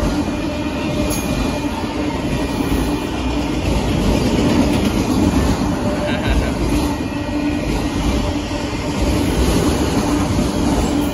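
Union Pacific freight train of autorack cars rolling past, a loud, steady rumble of wheels on rail.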